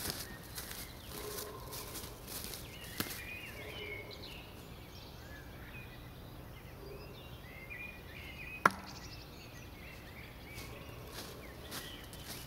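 A steel throwing knife strikes a wooden target once with a single sharp thunk and a brief ring, about two-thirds of the way in. Footsteps rustle through dry fallen leaves at the start and again near the end, and small birds chirp faintly in between.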